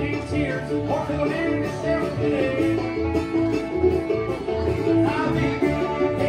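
Live band playing an instrumental passage of country or bluegrass music: plucked strings picking over a steady, pulsing bass line.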